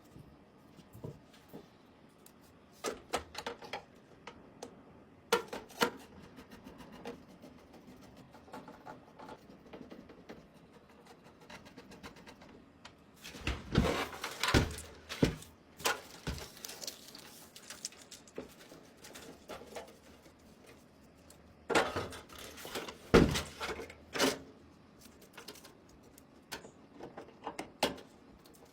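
Computer parts and hardware being handled: scattered sharp clicks and knocks of hard plastic and metal, with two busier bursts of clattering about halfway through and again later on.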